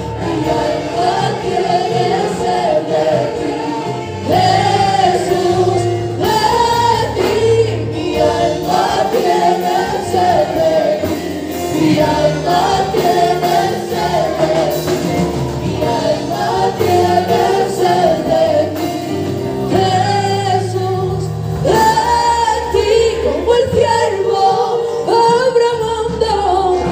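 A small women's choir singing a worship song together into microphones, several voices in unison and harmony.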